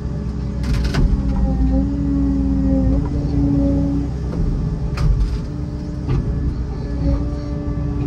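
Excavator heard from inside the cab: the diesel engine runs under load with a hydraulic whine whose pitch steps up and down as the boom and grapple swing a tree trunk. Sharp knocks sound about a second in and again about five seconds in.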